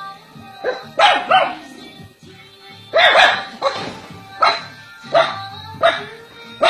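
A dog barking repeatedly in short, sharp barks, irregularly spaced, with a longer run of barks about three seconds in, over background music.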